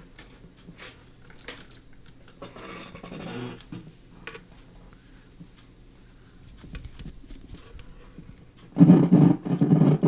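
Small clicks and handling noises as an antenna lead is clipped onto the 1936 Coronado 686B tube radio. About nine seconds in, a loud, rough burst of sound lasting about a second and a half comes through the radio's speaker.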